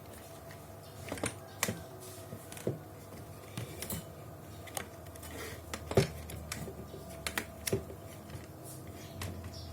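Irregular light clicks and knocks of plastic and metal parts being handled, with one sharper knock about six seconds in.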